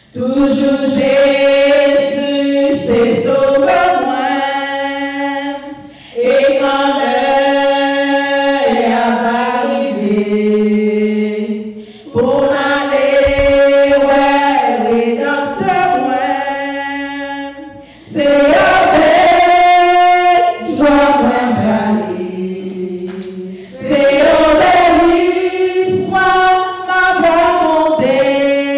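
A woman singing solo and unaccompanied into a microphone, in long held phrases that start about every six seconds.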